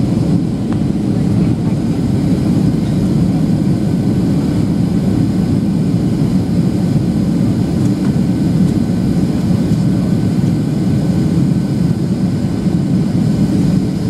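Steady cabin roar of a Boeing 737-800 in flight: its CFM56-7B turbofan engines running with rushing airflow, heard from a window seat over the wing. The deep rumble is even and does not change, as on the approach before landing.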